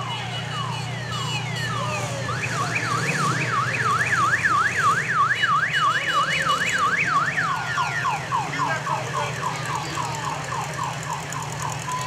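Vehicle's electronic siren cycling through its tones: repeated falling sweeps, then a fast up-and-down warble of about three cycles a second, then quicker falling sweeps again near the end, over an engine running steadily.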